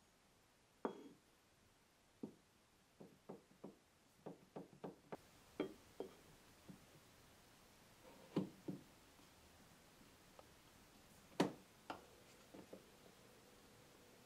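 Sharpening stones and a metal diamond plate set down and moved about on the phenolic plywood top of a sharpening box: a string of light knocks and clacks, with a quick run of small taps a few seconds in and the loudest knock about eleven seconds in.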